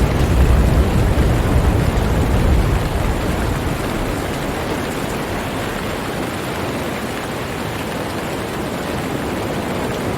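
Steady rain hiss with a deep rumble of thunder that dies away about three or four seconds in.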